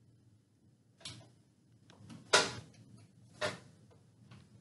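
A few short, irregularly spaced clicks and knocks from a hand working inside a ceiling electrical box and its wires, the loudest about halfway through.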